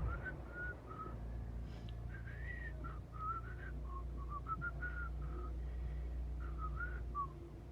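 A person whistling a tune in short, wandering notes, over a faint steady low hum.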